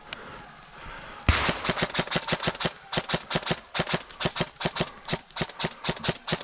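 Airsoft guns firing a rapid, uneven string of sharp shots, several a second with short breaks, starting about a second in.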